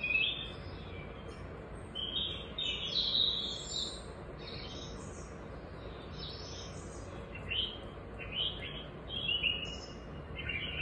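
Birds chirping, a string of short, high calls, some sliding in pitch, coming every second or so.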